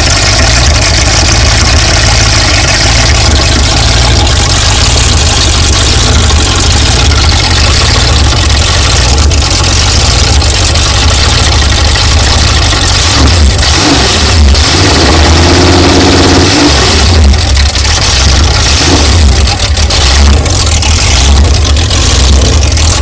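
Engine of a '76 Eliminator jet boat running loud and steady, revved up a few times about halfway through.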